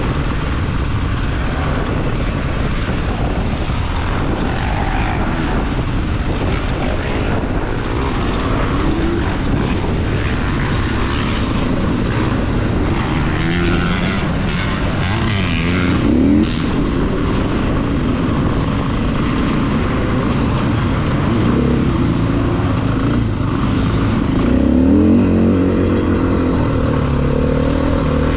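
Off-road vehicle's engine running steadily, with its revs climbing and falling about halfway through and again near the end.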